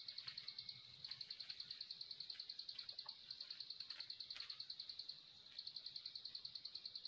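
An insect chirping in a faint, steady, high-pitched pulsed trill, with short pauses about a second in and again around five seconds, and a few faint clicks.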